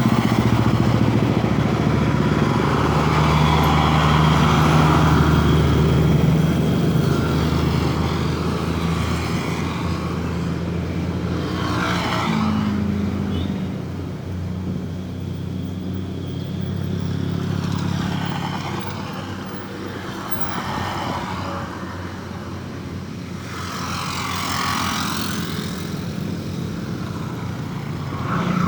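Road traffic: a vehicle engine running steadily close by, then three vehicles driving past one after another, about six seconds apart, each swelling and fading.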